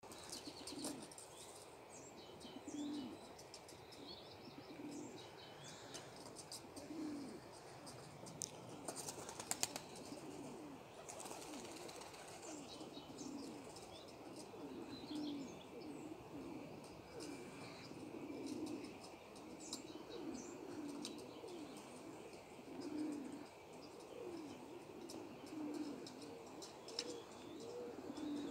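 Domestic pigeons cooing softly and repeatedly, one low coo after another every second or two, with small birds chirping higher up and a cluster of sharp clicks or wing flutters about nine to ten seconds in.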